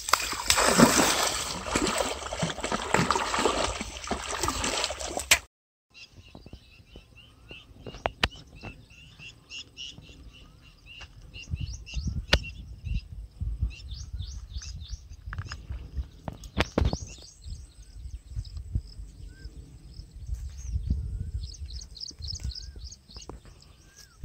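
Loud splashing in shallow weedy water for about five seconds as a hooked fish thrashes at the bank. It cuts off, and birds then chirp in quick runs of repeated high notes, with now and then a short rising-and-falling call, over a low rumble and a few sharp clicks.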